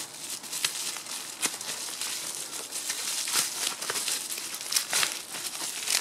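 Bubble wrap and plastic packaging crinkling and rustling as a hand-held crimping tool is unwrapped, with irregular sharp crackles throughout.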